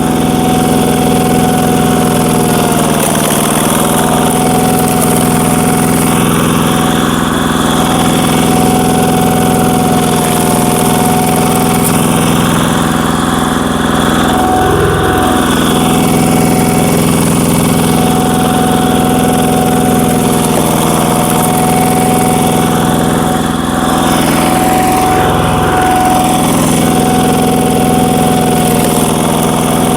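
Walking tractor's single-cylinder diesel engine running steadily at full throttle, driving a screw-type log splitter. Two brief surges of louder noise break through, one midway and one later.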